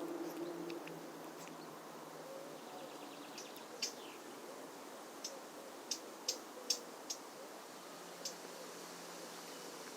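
A cat eating dry food from a bowl, picked up close: a faint, scattered series of short crunching clicks over a steady background hiss.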